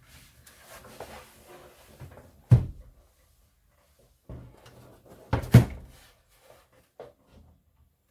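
Knocks and bumps of a computer power supply being handled and moved into place, with a loud thump about two and a half seconds in, a double thump about halfway through and a small knock near the end.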